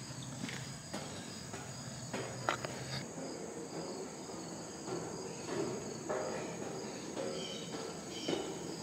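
Steady high-pitched chorus of insects in the trees, with scattered light footsteps on perforated steel stair treads as someone climbs a tower staircase.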